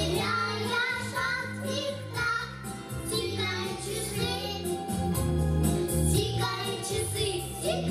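Small children's vocal ensemble singing together into microphones, over instrumental accompaniment with a steady bass line.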